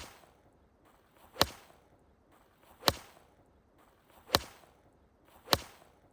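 A ball being struck hard five times, about a second and a half apart. Each strike is a sharp crack, preceded by a short rising swish and followed by a brief ring-out.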